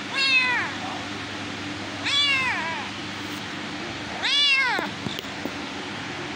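Kitten meowing three times, about two seconds apart, each meow a short call that rises and falls in pitch, over a steady low background hum.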